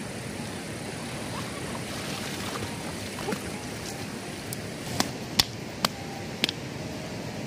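Muddy, swollen stream running with a steady rushing hiss. About five seconds in come four sharp ticks and taps, less than a second apart.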